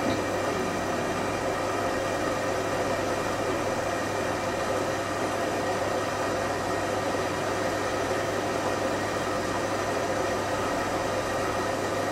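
IKEA RENLIG IWM60 integrated washing machine running steadily in a cotton 60 °C wash: an even motor hum with some roughness from the motor bearings, which the owner has oiled and hopes will smooth out.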